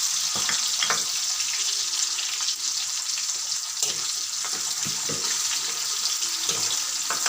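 Garlic and onion sizzling steadily in hot oil in a frying pan, with scattered short clicks and taps from a spatula.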